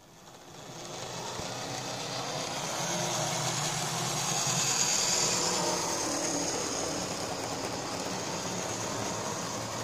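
Mainline OO gauge model Class 56 locomotive running on a model railway track: its electric motor whirring and its wheels running on the rails. The noise builds up over the first second or so as the train gets under way and is loudest about five seconds in as the locomotive passes close.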